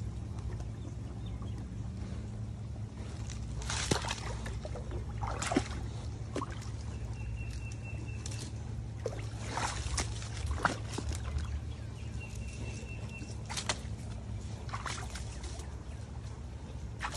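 Shallow rocky stream trickling and running steadily, with scattered sharp splashes from paws stepping and digging in the water.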